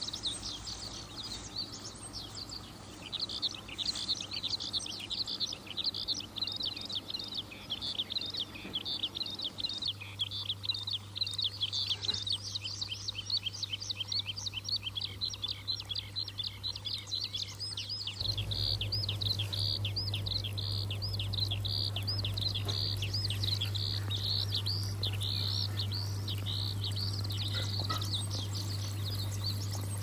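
Birds chirping rapidly and continuously in high, quick twitters, over a steady low hum that grows louder about ten seconds in and again a little past halfway.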